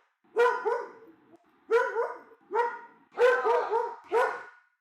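Angry dog barking aggressively in quick clusters of two to four barks, with short pauses between.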